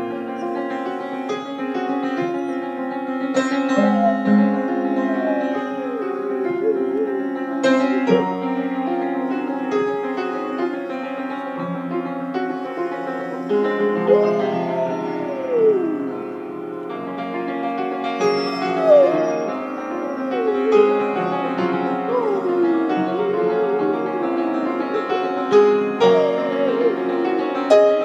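Great Pyrenees howling along to a piano, a series of howls that slide up and down in pitch over sustained piano notes and chords. It is the dog's habit of singing whenever the piano is played, not a cry of pain.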